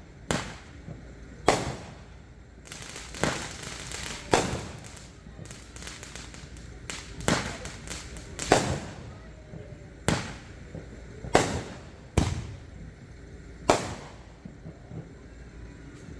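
Fireworks going off: about ten sharp bangs, one every second or two, each with an echoing tail, and stretches of crackling between them.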